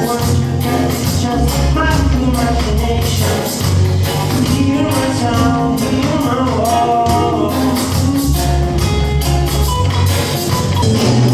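A band playing: a steady drum beat over a strong, deep bass line, with melodic instruments on top.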